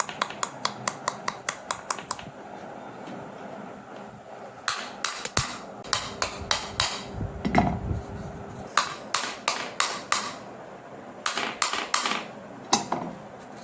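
Rapid light tapping, in four runs of quick sharp strikes with short pauses between them.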